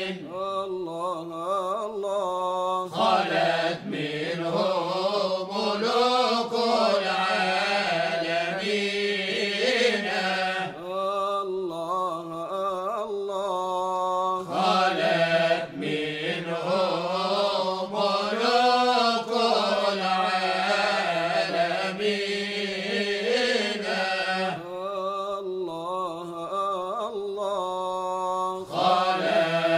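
A Sufi chant from Cairo: voices chanting a melody that winds up and down over a steady low held note.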